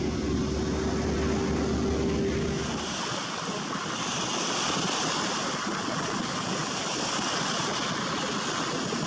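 Waves breaking and washing up on a sandy Lake Michigan beach, an even steady rush. For the first three seconds a low motor rumble with a steady hum runs under it, then stops.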